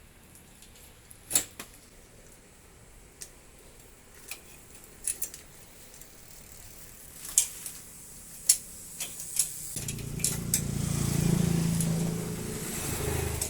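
Scattered sharp metallic clicks and clinks of tools and parts being handled. About ten seconds in, a motor vehicle engine starts to be heard, running with a low hum and growing louder.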